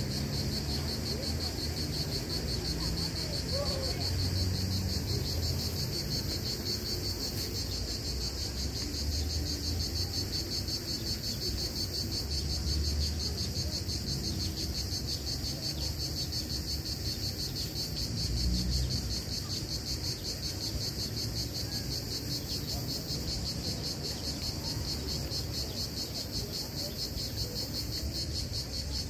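Insects trilling in a steady, rapidly pulsing, high-pitched chorus that never breaks, over a low background rumble.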